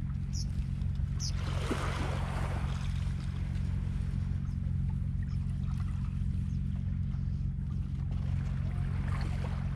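A steady low engine hum that holds an even pitch throughout, with faint lapping of small waves at the shoreline.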